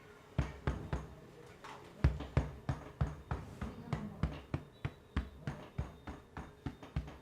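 A barber's hands striking the head and neck in quick rhythmic percussive massage strokes, about three a second, starting about half a second in.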